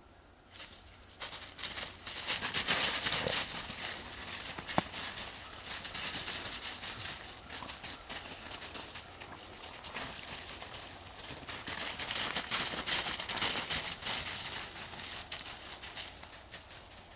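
Footsteps crunching through snow, with a rustle of dry leaves and twigs. Irregular crunches start about half a second in and ease off near the end.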